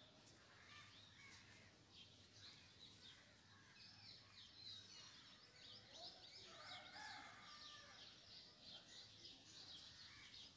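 Near silence with small birds chirping faintly and rapidly in the background, the chirping growing busier about four seconds in.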